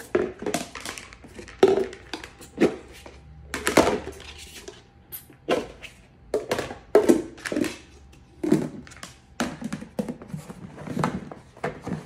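Plastic Tupperware Impressions mixing bowls and their lids knocking and clacking against each other as the bowls are nested and the lids dropped inside, a long run of separate hollow knocks. Near the end the lid is pressed down onto the top bowl to seal it.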